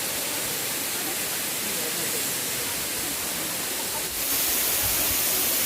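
Steady rush of waterfall water, a constant noise. It becomes abruptly louder and hissier about four seconds in.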